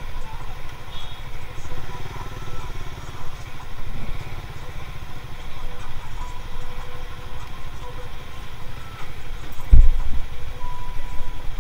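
Motorcycle engine running with road and wind rumble, picked up by an action camera's built-in microphone while riding behind a jeepney. A single loud low thump comes about ten seconds in.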